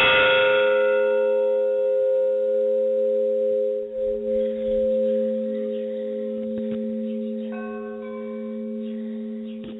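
Church bell struck once, then ringing on with a steady, slowly fading hum; a fainter, higher ring joins near the end.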